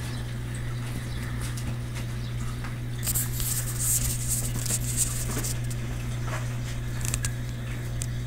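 Aquarium water trickling and dripping over a steady low hum, with scattered small clicks and a louder hissing splash starting about three seconds in and lasting a couple of seconds.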